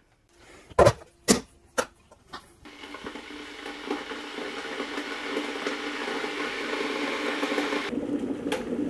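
A few sharp clicks and knocks, then an electric kettle heating water: a hiss and rumble that builds steadily louder as the water warms.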